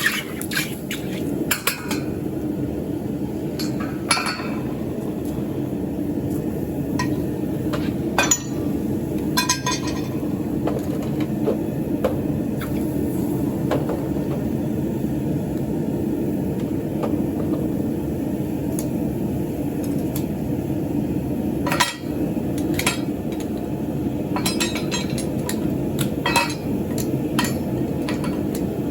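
A furnace melting scrap aluminum runs with a steady low rushing noise, with scattered metallic clinks and knocks on top as metal is handled, loudest about 4 s, 8 to 10 s and 22 to 27 s in.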